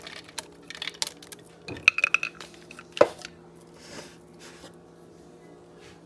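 Dry beans rattling and clinking as they are poured and scooped from a clear plastic bowl into a crock pot, with a louder knock of the bowl about three seconds in and quieter rattles after.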